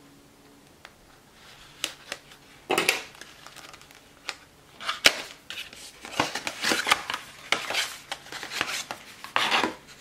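SSD retail packaging being opened by hand: the cardboard box and sleeve rustle and scrape in short bursts, with a sharp click about five seconds in, and the plastic tray holding the drive is handled near the end.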